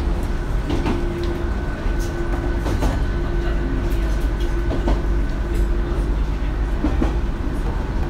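Inside a JR Kyushu Seaside Liner diesel railcar running at speed. A steady low rumble carries a hum that keeps dropping out and returning, and irregular sharp clicks and knocks come from the running gear.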